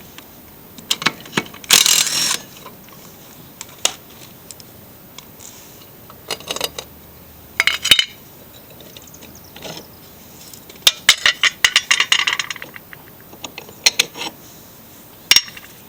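Hand tools and loose metal parts clicking and clinking in short, separate bursts as a lawn mower's blade is unbolted and taken off, with a quick run of clicks about eleven seconds in.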